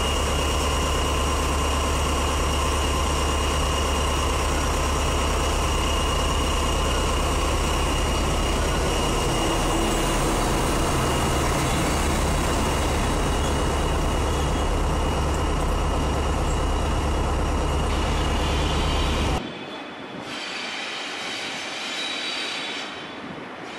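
SNCF BB 67300-class diesel locomotive engine running with a heavy, steady low rumble and a steady high whine as the locomotive passes close by. About 19 seconds in it cuts suddenly to the quieter sound of a BB 26000 electric locomotive hauling freight wagons, with a faint whine and a single sharp click near the end.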